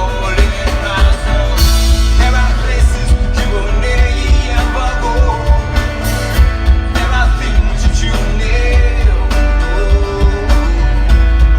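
Three-piece rock band playing live: loud, continuous music with heavy bass and drums and guitar.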